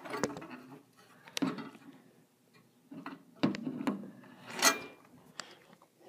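Handling noise from a hand-held camera being moved about: a run of irregular knocks, clicks and rubs, the loudest a little before the end. No steady air conditioner hum is heard.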